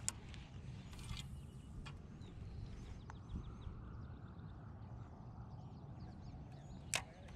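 A few sharp clicks and knocks from a spinning rod and reel being handled in a kayak, the loudest just after the start and again near the end. They sit over a low steady outdoor rumble, with faint birds chirping in the middle.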